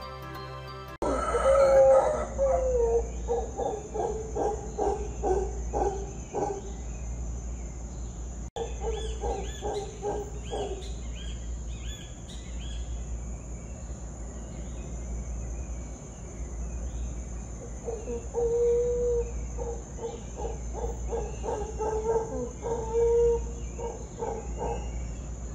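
Deep animal calls pulsing a few times a second in three bouts, over a steady high-pitched whine and faint chirps.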